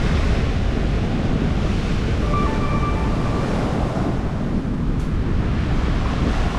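Wind buffeting the microphone over the steady rush of rough surf breaking on the shore.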